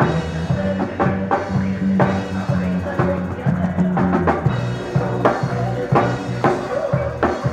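Live reggae band playing: drum kit, bass guitar, electric guitar and keyboards, with steady bass notes and regular drum hits, heard from beside the keyboards on stage.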